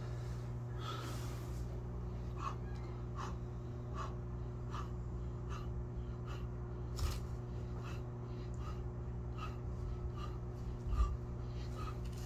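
A man's short, sharp breaths during a set of push-ups, one with each rep, about every three-quarters of a second. A steady low hum runs underneath, and there are a couple of dull thumps.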